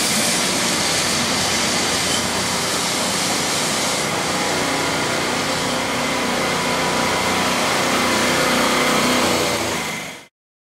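Steady street traffic noise from a vintage electric tram and cars moving over a cobbled street, cutting off suddenly about ten seconds in.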